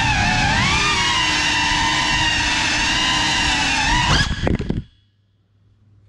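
FPV quadcopter's brushless motors whining, several tones rising and falling together with the throttle. A few sharp knocks come just after four seconds as the drone hits furniture and comes to rest, and the motors stop, leaving only a faint low hum.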